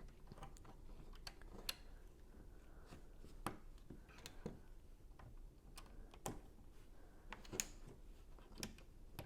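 Lego pieces clicking and tapping faintly as small tiles are handled and pressed onto a build: scattered, irregular clicks.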